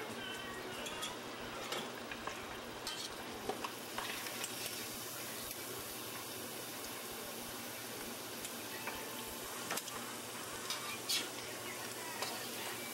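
Steady hiss of home-video camcorder audio, with scattered faint clicks and light knocks. The loudest knock comes about eleven seconds in.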